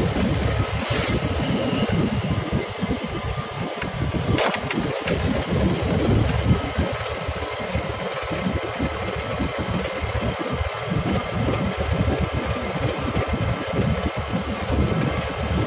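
An engine running steadily on the move, with wind buffeting the microphone.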